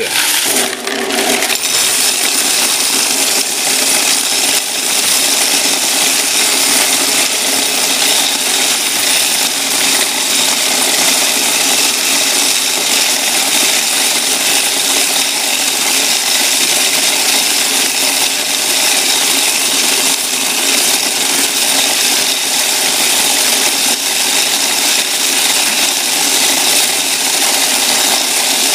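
Coin counting machine running through a load of quarters: a steady, dense rattle of coins with a faint motor hum beneath it.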